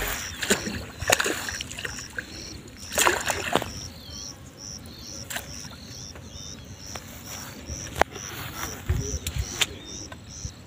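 A small barbel splashing in a landing net at the water's edge, with several short splashes, knocks and rustles of handling. An insect chirps steadily in the background, about three times a second.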